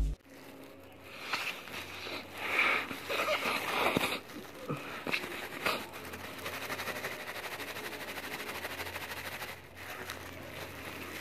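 Clear plastic bag crinkling and crackling as it is handled, in irregular bursts over the first few seconds, then fainter.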